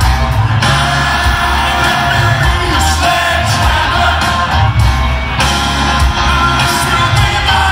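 Live rock band playing in an arena: lead vocal over heavy bass and drums, with crowd shouts and whoops mixed in.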